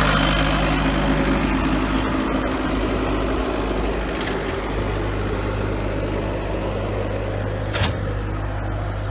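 Diesel engine of a 2008 Bobcat S185 skid steer idling steadily. The higher-pitched noise fades in the first second, leaving a low, even idle, with a short click near the end.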